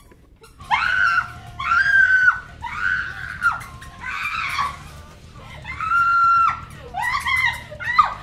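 A young woman screaming over and over: a run of about seven high-pitched screams, each lasting up to a second, beginning a little under a second in.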